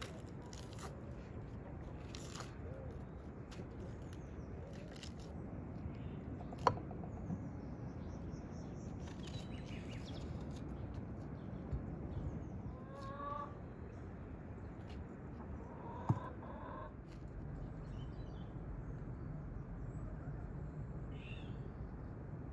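Steady outdoor background with a few short bird calls. There are two sharp knocks, about ten seconds apart, from a knife striking a wooden chopping board.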